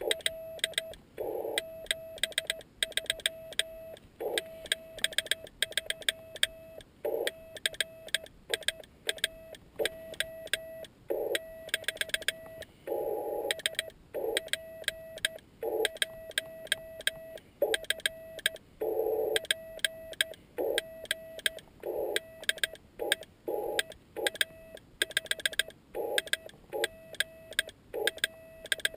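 Morse code sent by hand on a homemade key built from bicycle parts. The key clicks with each element while the Yaesu FT-817ND transceiver's sidetone beeps a steady tone in dots and dashes.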